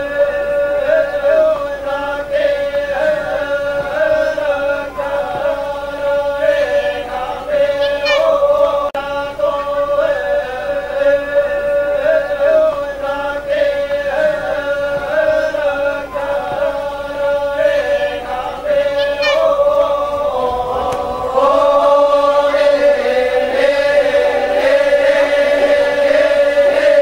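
A group of voices chanting together at a funeral, holding one steady note with slow, wavering lines above it. The chant grows louder about three-quarters of the way through.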